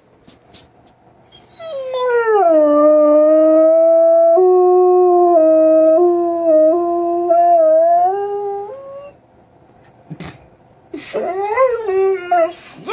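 Dog howling: one long howl that slides down in pitch at the start and then holds for about seven seconds with small steps in pitch. After a pause a shorter, wavering howl comes near the end.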